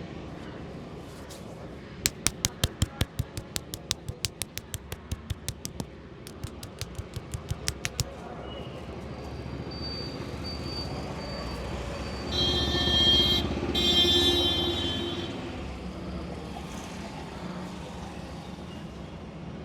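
Rapid hand-tapping head massage: cupped or clasped hands clapping sharply on the head, about six slaps a second for some six seconds, over steady street traffic. Later a vehicle horn sounds twice.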